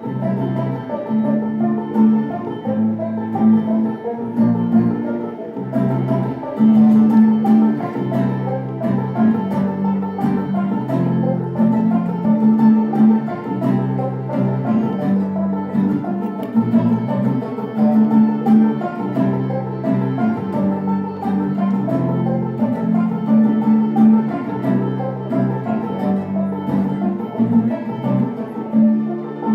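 Live acoustic instrumental music with a banjo and a mandolin picking rapid notes over a steady, rhythmic bass line.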